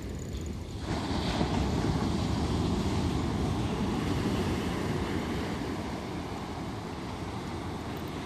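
Surf washing onto a beach, with wind rumbling on the microphone; the rush of water grows louder about a second in and stays up.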